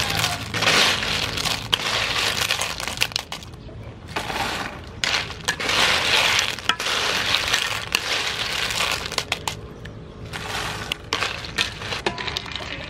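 Boiled cockle shells clattering against each other and a metal wok as they are scooped out with a wire strainer and wooden spatula, in about five rattling bursts with short pauses between.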